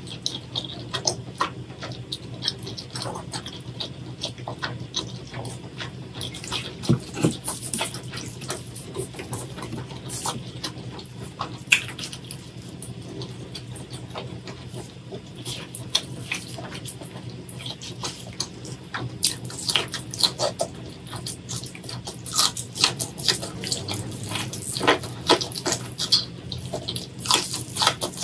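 Close-miked wet chewing and mouth sounds from eating food coated in spicy sauce, full of short sharp smacks and clicks that come thicker in the second half.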